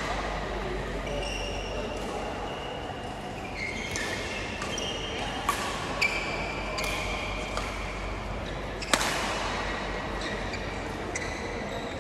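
Badminton rally: sharp hits of rackets on the shuttlecock, several in quick succession with the loudest about nine seconds in, mixed with short high squeaks of sneakers on the court floor, echoing in a large hall.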